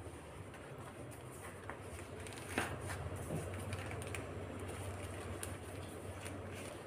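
Faint rustling and soft crinkling of a wilted banana leaf being folded into a parcel by hand and pressed flat, with light taps and one sharper tap about two and a half seconds in. A steady low hum runs underneath.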